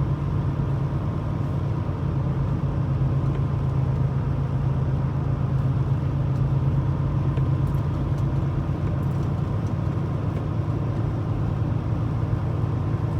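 Semi truck's diesel engine running steadily, heard from inside the cab: an even low drone with no change in pitch.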